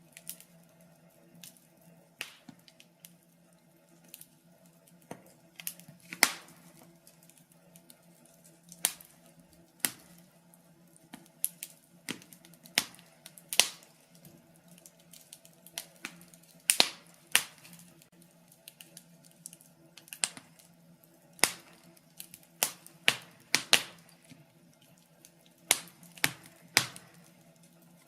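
Wood fire burning in a fireplace, crackling with irregular sharp pops and snaps, one to three every couple of seconds, over a faint steady hum.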